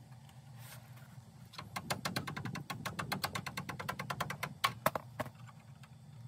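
A rapid run of sharp clicks, about eight a second, lasting some three and a half seconds, over a steady low hum.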